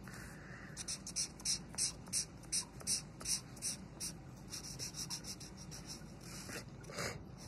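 Felt-tip marker rubbing back and forth on paper, colouring in an area. The strokes come evenly, about three a second, then turn quicker and lighter for the last few seconds.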